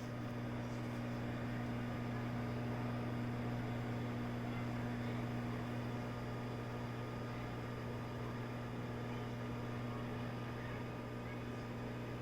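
Whirlpool microwave oven coming on and running with a steady low hum while it heats a bag of popcorn.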